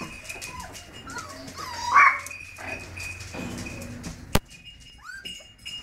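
Slovenský kopov (Slovak hound) puppies whining and yipping in short high cries that rise and fall in pitch, the loudest yelp about two seconds in. A single sharp click comes a little past four seconds.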